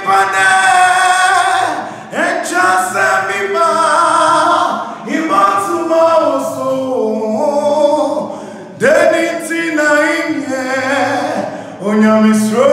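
A man singing a gospel song unaccompanied, in long held phrases with short breaks between them.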